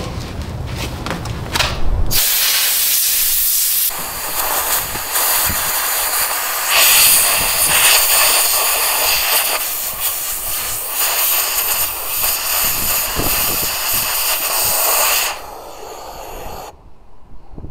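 Pressurized abrasive blaster, loaded with baking soda, blasting from its nozzle: a loud, steady hiss that starts about two seconds in, gets louder a few seconds later, and cuts off near the end.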